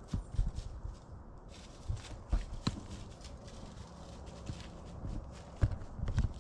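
Irregular low thumps and dry crackling clicks, loudest in a cluster near the end: close handling noise from a camera and its mount on a tree stand.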